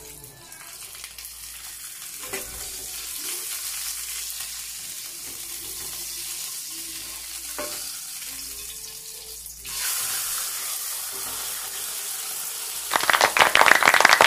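A whole fish pan-frying in hot oil in a nonstick pan: a steady sizzle that grows louder, with a couple of spatula knocks on the pan. Near the end the fish is turned and there is a sudden, much louder burst of crackling oil spatter.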